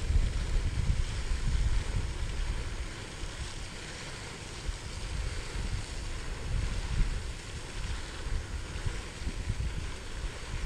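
Wind buffeting the microphone in gusts, a low rumble that swells and eases, over a steady hiss of breeze.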